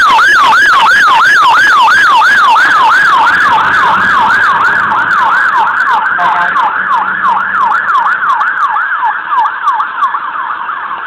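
Fire engine's electronic siren on a fast yelp, sweeping up and down about three times a second. It is very loud at first and fades steadily over the last several seconds as the appliance draws away.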